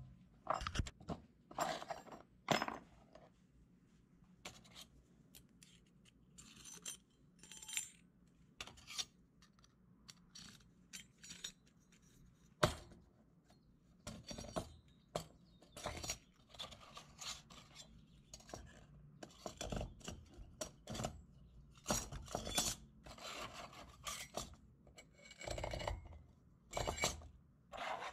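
Thin sheet-metal flower cutouts clinking and scraping against a steel rod stem and the workbench as they are handled, in irregular light clinks with one sharper clink about halfway through.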